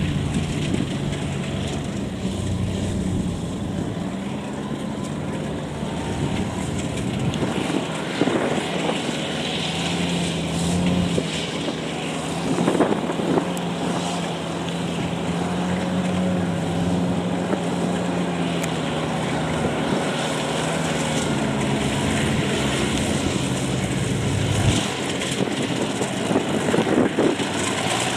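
Kubota DC70 combine harvester's diesel engine running steadily, its drone rising and falling a little in pitch, with a few brief clatters.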